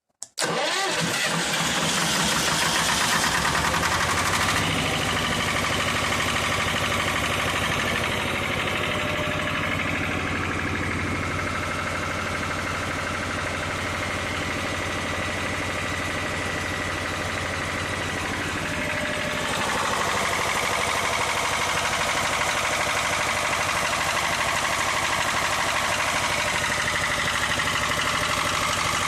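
Lister TS2 two-cylinder air-cooled diesel engine starting abruptly from silence in cold weather, then running steadily as a generator set. Its tone shifts a little about twenty seconds in.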